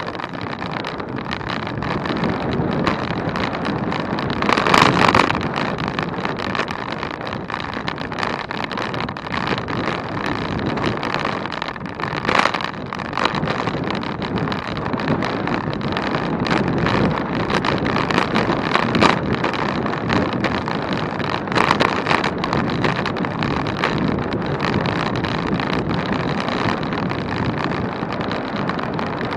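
Wind rushing over the microphone of a camera on a moving bicycle, with tyre and road noise underneath; it swells briefly louder a few times.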